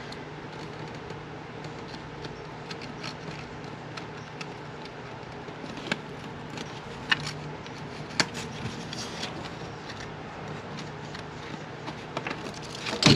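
Scissors snipping in short, separate cuts, the sharpest about six, seven and eight seconds in, over a steady low hum.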